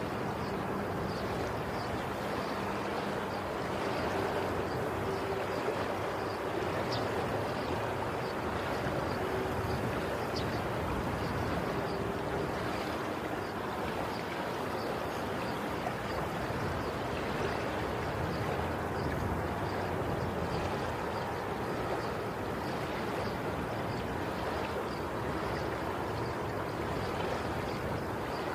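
Steady rushing water noise, even throughout, with faint regular ticks high in the sound.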